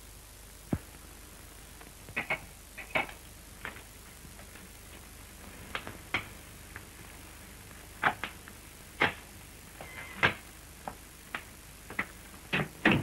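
Irregular knocks and footfalls on wooden floorboards, coming about once a second in the second half and bunching together near the end, over the steady hiss of an old optical film soundtrack.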